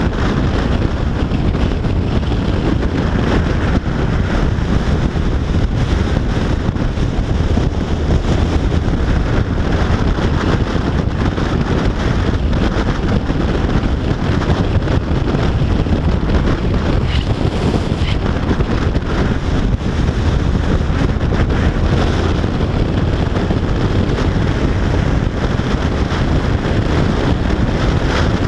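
Steady wind noise buffeting the microphone of a GoPro on a Yamaha FJR1300AE touring motorcycle riding at motorway speed, loud and heavy in the low end, with no distinct engine note standing out.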